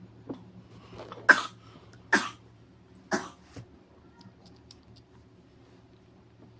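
A baby with a cold coughing three times, about a second apart, with a couple of weaker coughs either side.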